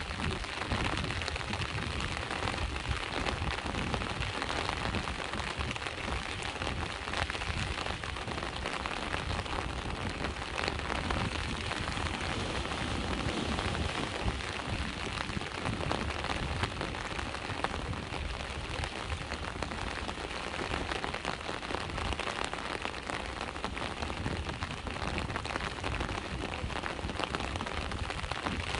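Steady rain falling on surfaces, a dense hiss of many small drops, over a low rumbling wash of sea waves.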